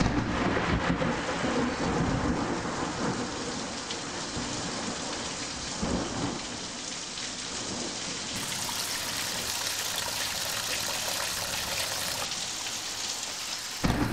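Steady rushing water noise with a low rumble underneath, swelling briefly about six seconds in.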